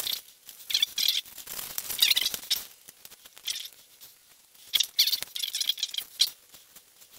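Scissors snipping through a sheet of printer paper in quick runs of short cuts, with a short lull about three seconds in.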